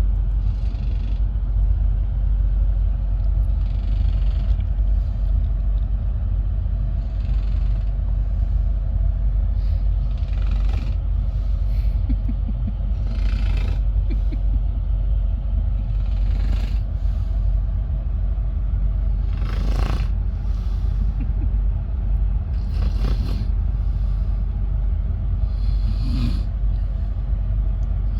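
A sleeping passenger snoring, one snore about every three seconds, over the steady low rumble of a moving train.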